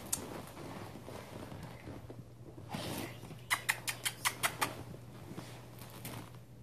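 Pomsky puppies playing: scuffling and rustling, with a quick run of about six sharp clicks a little past the middle.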